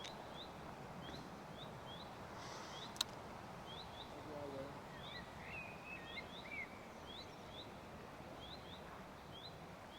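A small bird repeats a short, high, upward-flicked chirp about twice a second, with another bird's brief warbled phrase a little past the middle, over a steady rush of river water. A single sharp click sounds about three seconds in.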